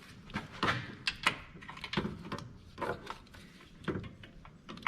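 Irregular metallic clicks, clinks and scrapes of hand tools and a socket being worked onto a bolt under a car, with a few sharper knocks spread through.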